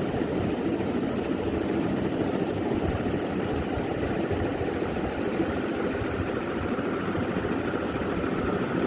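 A vehicle engine running steadily at an even speed, a low rumble that neither revs up nor dies away.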